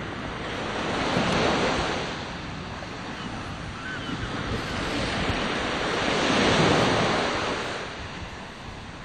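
Wind and surf noise on an open beach: a steady rush that swells twice, about a second in and again around six seconds in.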